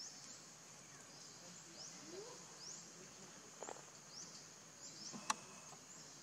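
Faint forest ambience: a steady high insect drone with short upward chirps every second or so. One sharp click about five seconds in.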